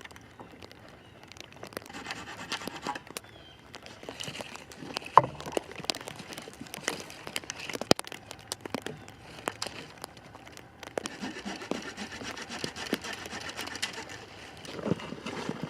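Irregular crunching, rustling and crackling with scattered sharp snaps and knocks, from footsteps in snow and sticks being handled. The loudest knocks come about five seconds in and just before eight seconds.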